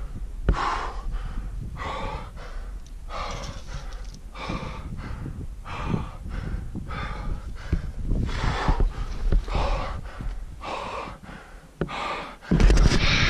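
A climber breathing hard in quick, loud breaths about once a second, panting from exertion with a heavy pack at high altitude. A louder low rush of noise comes in near the end.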